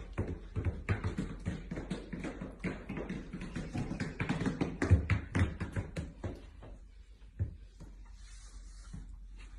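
Rapid, irregular tapping and clicking, many small knocks close together for about seven seconds, then one last click and faint hiss.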